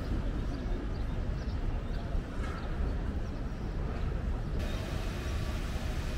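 Outdoor city-square ambience: a steady low rumble with faint scattered sounds above it, changing abruptly about four and a half seconds in to a hissier background.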